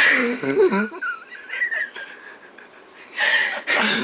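A person's forced wheezing laugh: a loud first second of squeaky, breathy voice sounds, a thin whistling squeak in the middle, then two loud hissing wheezes near the end.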